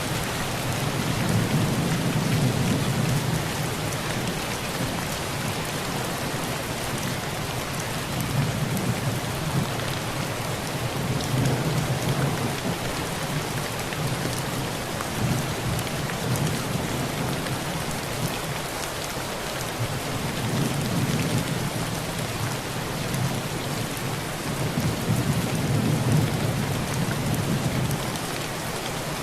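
Heavy rain drumming steadily on a metal tin roof, with low thunder rumbles swelling and fading every few seconds.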